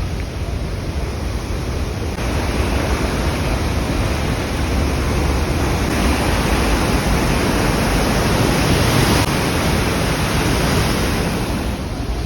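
Waterfall running: a steady rush of falling water with a heavy low rumble, getting a little louder about two seconds in.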